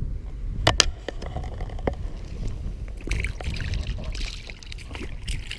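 Wind buffeting the microphone with a steady low rumble. Two sharp clicks come close together under a second in and another near two seconds, then a rustling hiss from about three to five seconds.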